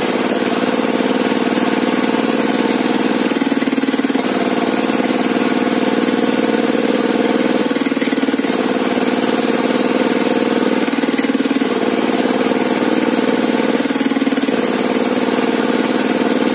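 Engine driving a sawmill rig, running steadily, its pitch shifting slightly every few seconds.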